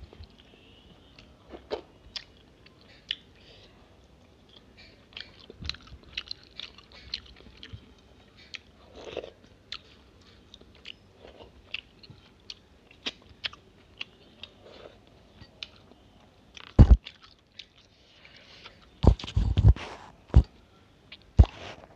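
Close-up eating sounds of a person finishing rice and egg curry by hand from a steel plate: fingers scraping up the curry, wet mouth smacks, finger licking and chewing clicks. A few heavy thumps come near the end.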